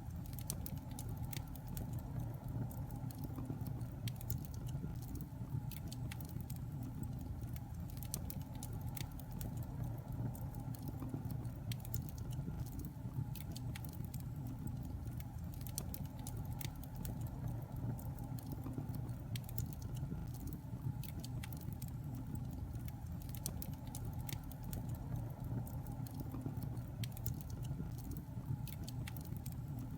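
Fire burning in a fireplace: a steady low rumble of flames with many irregular sharp crackles and pops.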